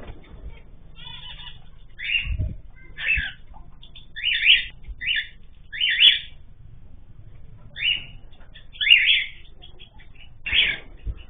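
Cage birds calling: short, rough chirps repeated about once a second, with a dull low thump about two and a half seconds in.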